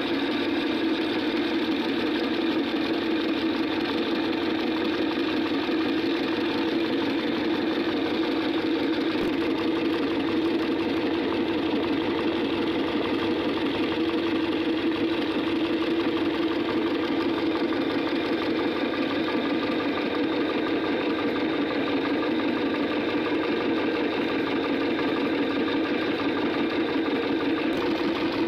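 Meat grinder's motor running with a steady, even hum.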